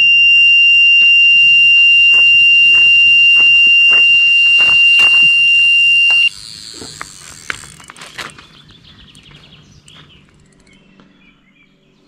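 Electronic carp bite alarm sounding one loud, continuous high tone as line is pulled from the rod: a full run, meaning a carp has taken the bait. The tone cuts off sharply about six seconds in as the rod is picked up, and a few faint clicks follow.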